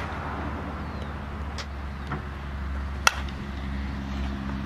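Softball bat striking a front-tossed ball: one sharp crack about three seconds in, with a couple of faint ticks before it. A steady low hum runs underneath.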